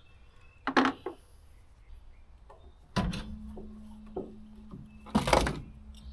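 Knocks and clunks from handling tools and hardware: a couple of light knocks about a second in, a loud one about three seconds in and another about five seconds in, with a low steady hum coming in at the loud knock.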